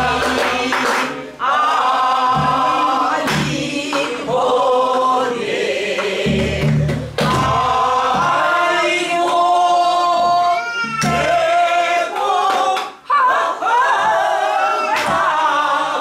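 A group of mixed male and female voices sings a Namdo (southern Korean) folk song in unison, with drawn-out, bending sung notes. Strokes on buk barrel drums keep the rhythm under the singing.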